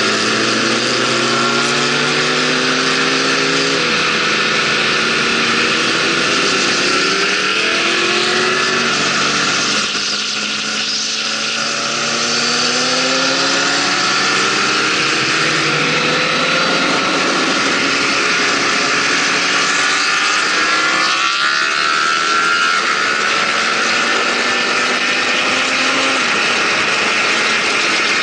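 Motorcycle engine accelerating up through the gears: its note climbs in pitch and drops back at each shift, under a steady rush of wind noise. The engine eases off briefly about ten seconds in.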